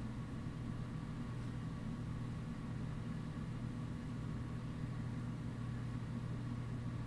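Steady low hum with a faint hiss, unchanging throughout: background noise of a quiet room.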